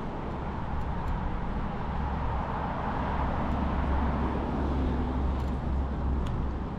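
Wind rumbling on the microphone of a moving bicycle, with the steady hiss of tyres rolling on pavement, swelling slightly midway.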